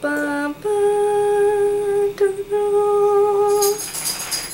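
A voice sings a rising reveal fanfare: a short note, then a higher note held for about three seconds with a brief break partway through. A short shimmering, rattly sound comes in near the end.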